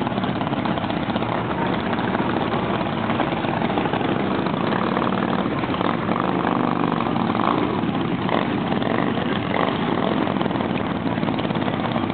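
Several motorcycle engines running as bikes ride slowly along the street, a steady dense din, with one engine's note standing out about six seconds in.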